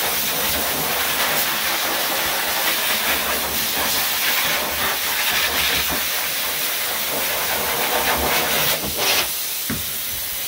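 Dog blow dryer running: a steady, loud rush of air blowing onto a freshly bathed dog's wet coat.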